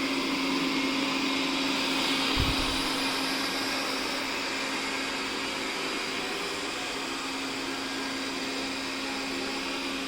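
Robot vacuum cleaner running: a steady motor hum over hiss, with one brief low bump about two and a half seconds in.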